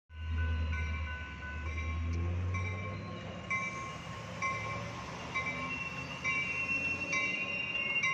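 A railroad crossing bell dings steadily about once a second while a Metra bilevel commuter train rolls through the crossing. A low rumble is strongest in the first three seconds.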